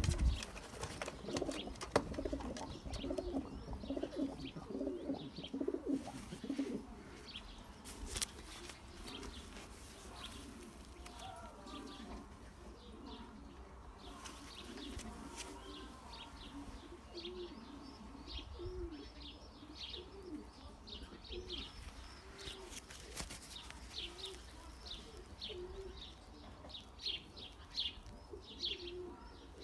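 Domestic racing pigeons cooing, with low curved coos repeating again and again. From about halfway, quick runs of short high-pitched bird chirps join in.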